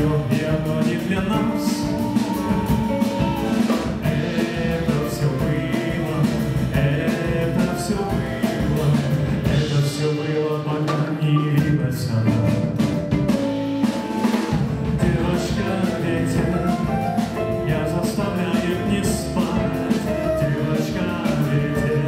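A small band playing a song live, with a drum kit keeping a steady beat under held instrumental notes.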